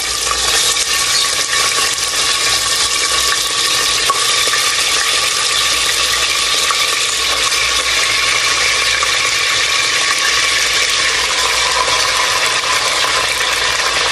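Raw pork pieces sizzling as they fry in hot cooking oil in a pot, a steady hiss as more pieces go in.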